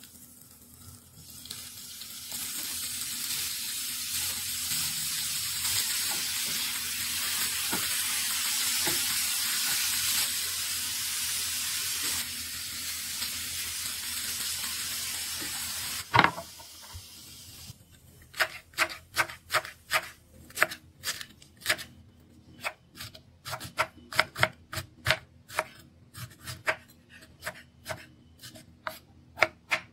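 Butter and chicken pieces sizzling in a frying pan, a steady hiss that stops suddenly about halfway through at a sharp knock. Then a knife chopping red cabbage on a wooden board, about three chops a second in quick runs.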